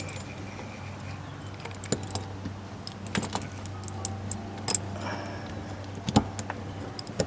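Scattered light metallic clicks and rattles of a garage door quick-release lock's steel cable and key being pushed through a hole in the door, with a sharper knock about six seconds in.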